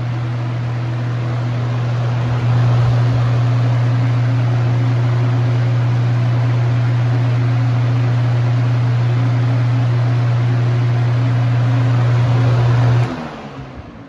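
20-inch box fan with a shaded-pole motor running on high with a cheap, flimsy blade set: a steady rush of air over a strong low motor hum, which gets a little louder about two seconds in. Near the end the fan is switched off: the hum stops abruptly and the air noise dies away.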